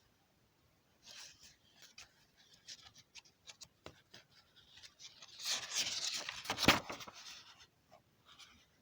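Irregular rustling and scraping with scattered clicks, thickest and loudest about five to seven seconds in, with one sharp click near the end of that stretch.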